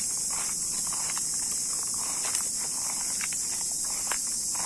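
Steady high-pitched insect chorus, with soft irregular rustling and a few light knocks.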